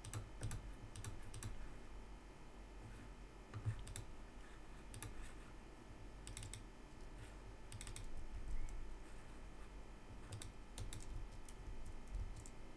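Computer keyboard typing: faint, scattered keystrokes with pauses between them.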